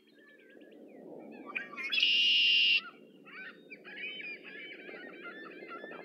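Red-winged blackbird singing its conk-la-ree song once: a few short notes about a second and a half in, then a loud, buzzy trill lasting nearly a second. Softer chirping notes follow it.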